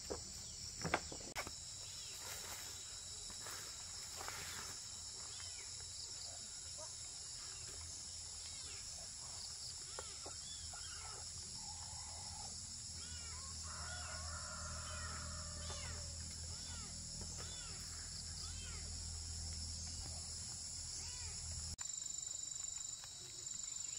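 Steady high chorus of crickets and other insects, with scattered short bird chirps. A low rumble joins in about halfway through and fades out near the end.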